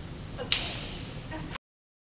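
A single sharp knock about half a second in, trailing off as a short rattle over low room noise, then the sound cuts off abruptly.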